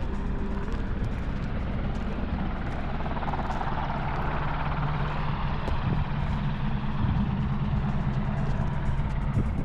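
Steady engine drone with a low hum.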